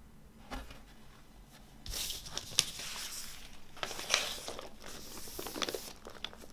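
Paper inner sleeve rustling and crinkling as a vinyl LP is handled and slid into it, in two main spells with a few sharp clicks.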